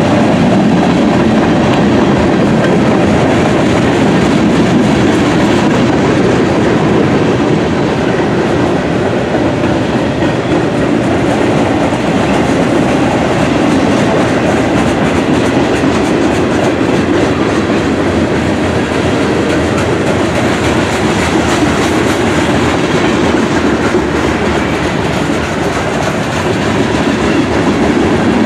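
Freight cars of a mixed freight train (boxcars, covered hoppers, tank cars) rolling past close by. Their steel wheels on the rails give a steady, loud rumble with the clickety-clack of the wheels over the rail joints.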